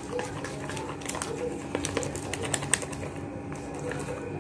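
Metal spoon stirring a thick, wet bait batter in a plastic bowl: quick irregular clicks and scrapes of the spoon against the bowl. A dove coos softly a few times in the background.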